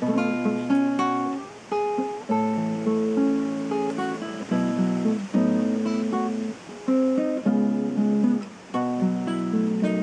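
Solo nylon-string acoustic guitar played fingerstyle, a slow melody over plucked chords in short phrases with brief breaths between them.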